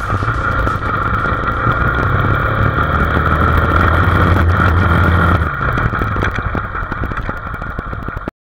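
Motorcycle engine running steadily while riding a dirt road, heard close up from the bike. It eases off a little about five and a half seconds in, and the sound cuts off abruptly just before the end.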